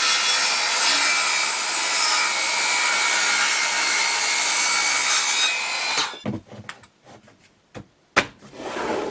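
Evolution 165mm 18V cordless circular saw cutting through wood for about six seconds, then stopping suddenly. A few short knocks follow, with one sharp click near the end.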